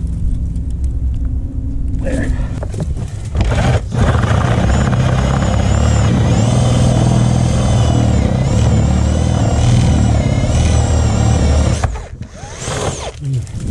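DeWalt cordless drill driving a hole saw through the house's siding and wall. The motor whine wavers in pitch as the cut loads it, starting about two seconds in and stopping sharply near the end.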